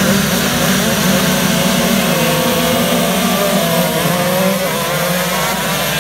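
Several racing kart engines running hard at high revs as a pack of karts accelerates past, their whine wavering and rising.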